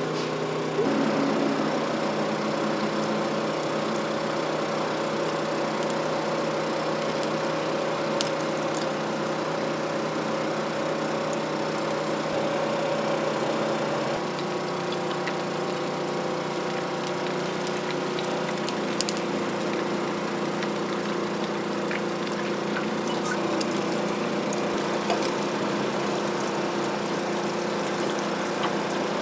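A steady motor or engine hum with a constant pitch that shifts slightly about halfway through, with a few faint clicks over it.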